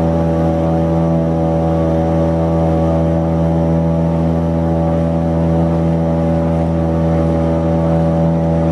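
Outboard motor of a wooden river longboat running steadily at an even speed, its pitch holding constant.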